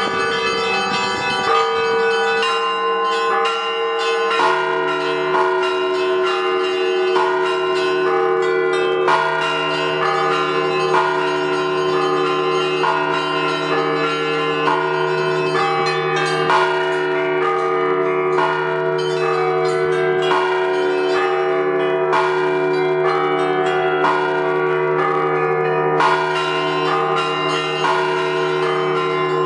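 Many church bells of a zvonnitsa rung together in a repeating rhythmic pattern: smaller bells struck about every one to two seconds over the long ringing hum of larger bells, with a deeper bell joining about four seconds in.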